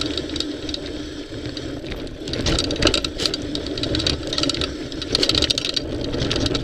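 Mountain bike rolling fast over a rocky singletrack: knobby tyres crunching over loose stones, with a constant clatter of rattles from the bike over the bumps and a low rumble underneath.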